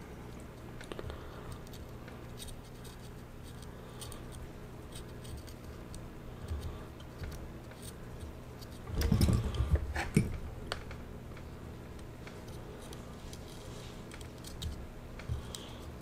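Faint scattered clicks and light handling noise from soldering work at a bench, over a low steady hum, with a louder rustle or bump lasting about a second and a half starting about nine seconds in.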